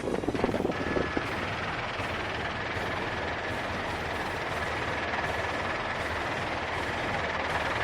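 Helicopter in flight heard from aboard: steady rotor and engine noise, with no gunfire.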